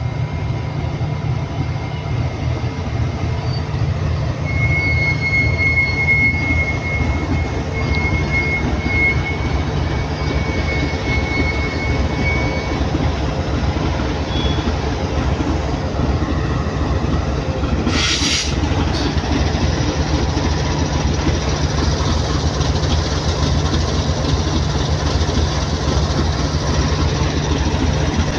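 GEU-40 diesel-electric locomotive braking to a halt and standing with its diesel engine running, a steady low rumble. A thin, high brake squeal runs from about four to thirteen seconds in, and a short hiss comes about eighteen seconds in.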